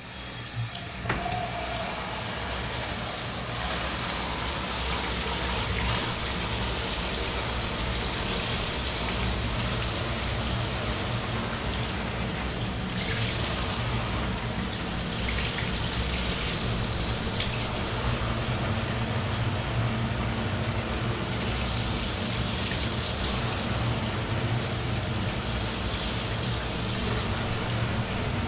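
Shower running: water spraying steadily with a dense, even hiss of splashing. The flow builds up over the first couple of seconds after the valve is opened, with a single click about a second in, then holds steady.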